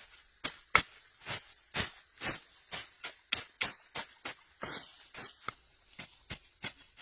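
A steady series of sharp knocks, about two to three a second, with one longer scraping stroke near the middle.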